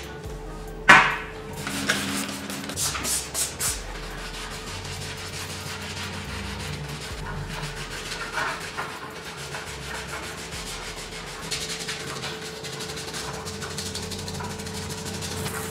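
Abrasive rubbing on metal, as in sanding, going on steadily. There is a sharp knock about a second in and a few clattering knocks between two and four seconds in.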